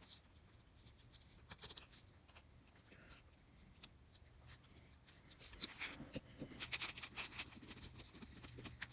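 Near silence with faint clicks and light rustling of small parts being handled, busier in the second half, as a replacement plug is fitted to a vacuum's power cord.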